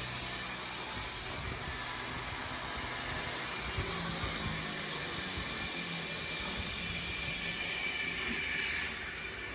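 2x72 belt grinder running with a used abrasive belt grinding metal: a steady, bright hiss that eases off and drops near the end.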